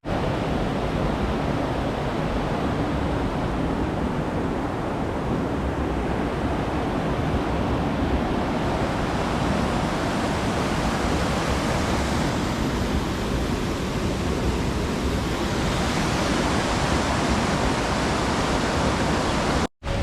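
Steady rushing of flowing water, an even roar with no breaks.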